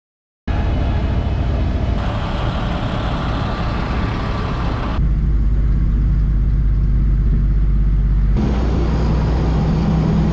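Vehicle driving, with steady engine and road noise heavy in the low end, in several short clips joined with abrupt changes in tone.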